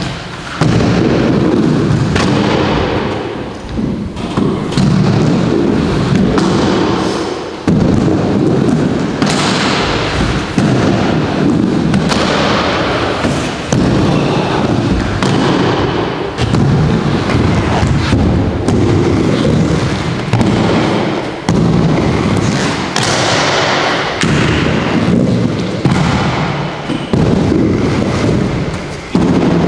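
Aggressive inline skate wheels rolling on a wooden halfpipe ramp. The loud rolling noise is broken every couple of seconds by sharp thuds of stalls, grinds and landings on the ramp's metal coping.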